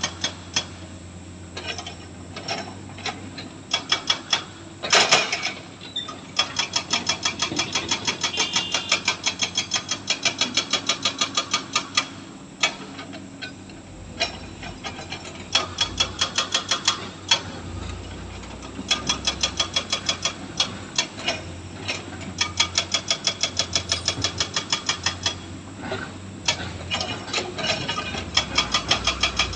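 Excavator's diesel engine running under load, with runs of rapid, evenly spaced knocks, several a second, broken by short pauses.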